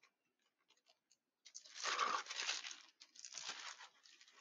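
Clear plastic sleeves of scrapbook paper packs crinkling as they are handled, in two bursts: the first about a second and a half in, the second about three seconds in.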